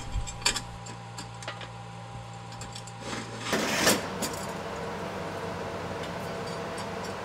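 Faint clinks and handling noises from a steel mounting bracket and its bolts, with a brief scrape about three and a half seconds in, over a low steady hum.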